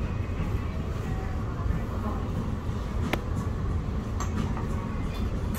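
Steady low rumble of restaurant room noise with faint murmured voices, and a single sharp click about three seconds in.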